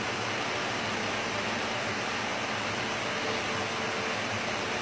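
Steady room noise: an even hiss with a faint steady hum and no distinct events, of the kind an air conditioner or fan makes.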